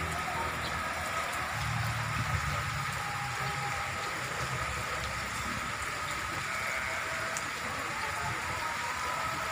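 Heavy rain falling steadily, pattering on surfaces.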